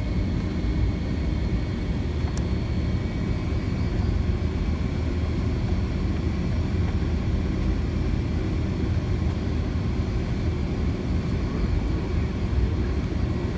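Boeing 757-200's jet engines at taxi power heard from inside the cabin over the wing: a steady low rumble with faint, steady high tones, with no spool-up as the airliner taxis.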